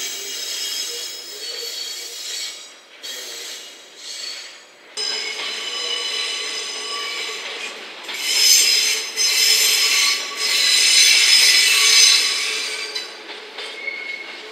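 Steel wheels of a slow-moving freight train squealing against the rails on curved yard track: several high-pitched tones that waver, growing loudest about eight to twelve seconds in.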